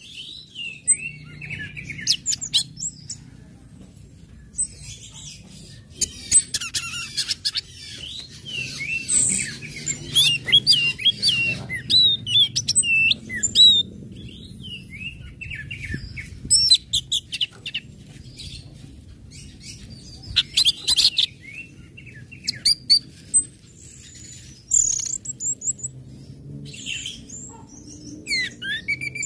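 Orange-headed thrush singing a varied song of short whistled phrases, sharp chips and fast trills, coming in bursts with brief pauses, over a faint low hum.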